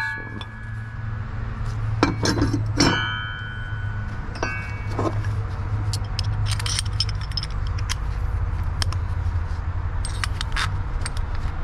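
Steel hole saws and arbor parts clinking and ringing against each other and their case as they are handled and a saw is fitted onto its arbor: scattered metal clicks, a few with a brief ring, over a steady low hum.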